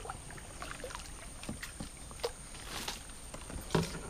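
Faint scattered knocks, taps and small swishes of water around a plastic kayak as a landing net is worked into the water among branches.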